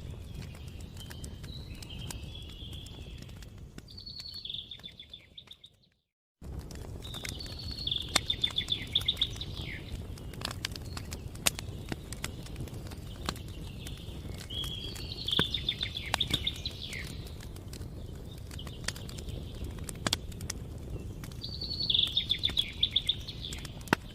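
Campfire crackling with sharp, irregular pops over a steady low rumble, while a songbird repeats short trilled phrases every several seconds. About five seconds in, everything fades and cuts to a moment of silence, then resumes abruptly.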